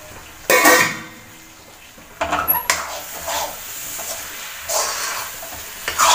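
A spoon stirring and scraping thick chicken masala around a metal kadai in repeated strokes, after a single clatter of metal about half a second in.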